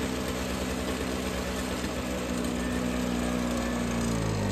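Two-stroke engine of a Toro CCR2000 single-stage snowblower running steadily on a newly replaced carburetor, still clearing the old gas left in it. Its pitch dips slightly near the end.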